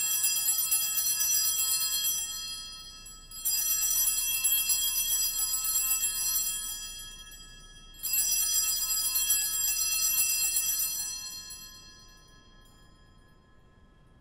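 Altar bells, a set of small hand bells, rung three times about four seconds apart; each ring is a bright jangling that fades away, the last dying out near the end. They mark the elevation of the chalice at the consecration.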